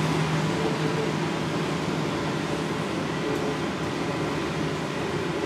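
Interior running noise of a NAW trolleybus driving along a wet street: a steady whirring hum with an even haze of road noise. A low humming tone dies away in the first second or two.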